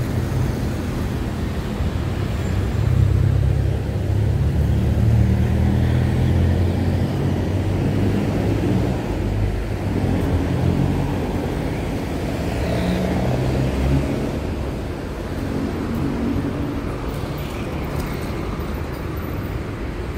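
A vehicle running with a steady low rumble, its engine hum shifting in pitch and easing off about fourteen seconds in.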